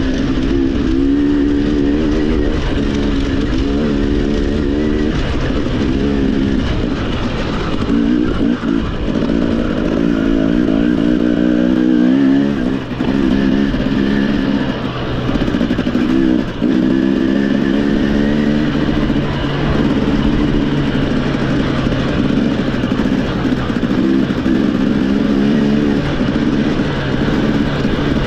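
Motorcycle engine revving up and down continuously, its pitch rising and falling as the throttle is worked, with a couple of short drops in level about twelve and sixteen seconds in.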